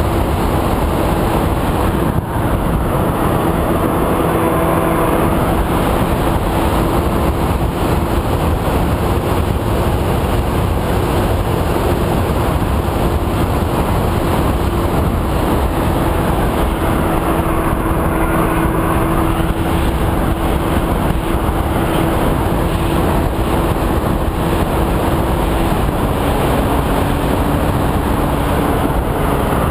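Steady drone of the EasyStar RC plane's electric motor and propeller heard from the onboard camera, over heavy wind rush; its pitch steps down a little near the end.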